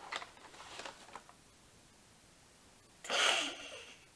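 Hands rummaging in a paper bag with soft rustles and light clicks, then, about three seconds in, a short, loud breath out through the nose, like a snort of laughter.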